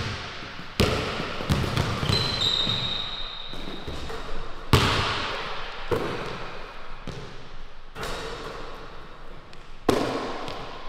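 Basketball dribbles and hits on a hardwood gym floor, ringing with the echo of the large hall. A high sneaker squeak is held for over a second about two seconds in.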